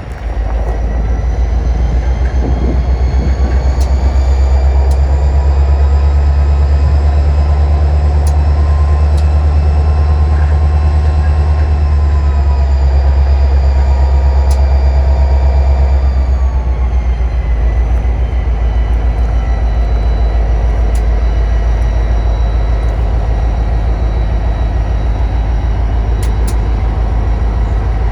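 Union Pacific tie-pickup work train rolling past, with a heavy, steady low engine drone. Several whining tones rise gently and then drop away a little past the middle. A few sharp clicks sound over the top.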